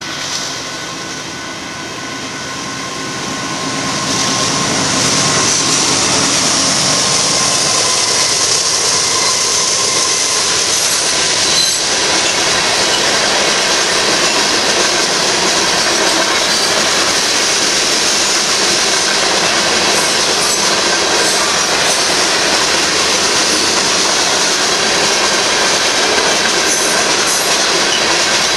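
Freight train of covered hopper cars rolling past, steel wheels running on the rails with a steady, loud rumble and hiss. The noise builds over the first few seconds as the train comes through, then holds steady as car after car passes.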